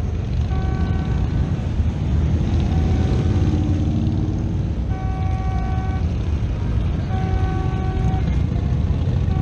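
Steady low rumble of street traffic as a pickup truck and motorcycles pass. A short pitched tone with overtones repeats about every two seconds.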